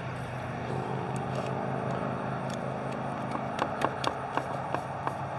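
A steady low motor hum, like an idling engine, runs throughout. From about halfway in, a string of short sharp crinkles and taps comes from hands handling and pressing a label onto a plastic shrink bag around a whole chicken.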